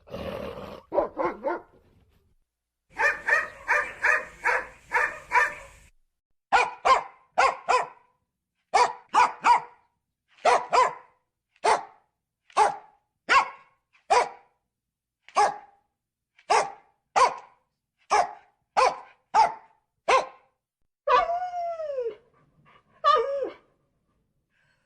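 Dog barking repeatedly: a quick run of barks, then barks in twos and threes, and near the end a couple of drawn-out cries that fall in pitch, like whines.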